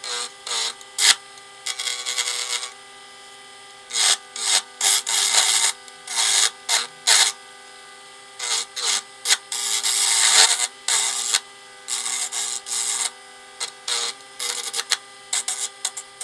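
CNC007 mini lathe's small motor running with a steady whine, while a turning tool cuts into spinning black alder in irregular bursts of scraping, some brief and some a second or more long.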